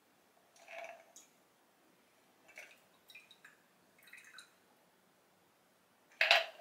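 A stirred cocktail is strained from a glass mixing glass over a large ice cube in a tumbler, giving a few faint separate splashes and drips as the pour thins out. A much louder sudden clink comes near the end.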